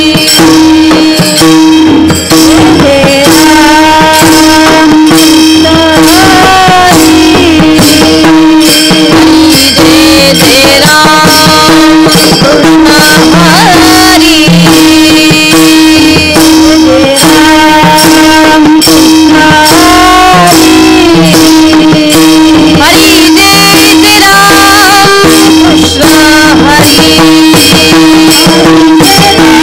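Devotional kirtan music: a woman singing a melodic panchapadi over a steady held drone, with hand-drum strokes and jingling small cymbals keeping a steady beat.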